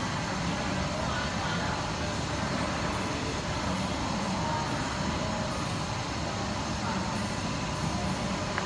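Steady background noise with faint, indistinct voices.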